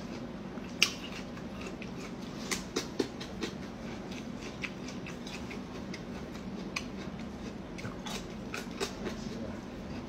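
Close eating sounds of a hand-peeled bamboo shoot: crisp snaps and clicks as the fibrous skin is stripped and the shoot is bitten and chewed, the sharpest about a second in, around three seconds and near nine seconds. A low steady hum runs underneath.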